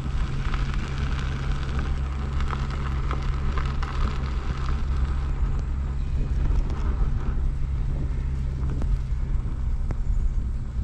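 Wind buffeting the microphone, with a steady rumble and scattered crackling from an electric unicycle's tyre rolling over a dirt trail.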